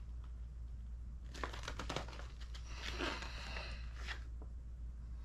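Paper pages of a kit instruction booklet being turned: a few short runs of rustling and crinkling between about one and four seconds in, over a low steady hum.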